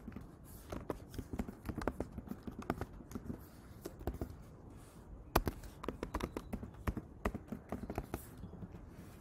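Computer keyboard being typed on: irregular key clicks, with one sharper click about five seconds in.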